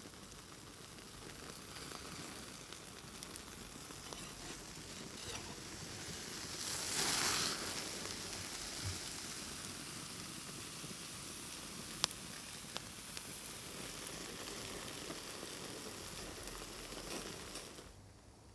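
Caul-fat-wrapped stuffed steak sizzling on a hot grill grate over an open fire, the fat spitting and crackling. The sizzle swells louder about seven seconds in, a single sharp click comes about twelve seconds in, and the sizzling dies away near the end.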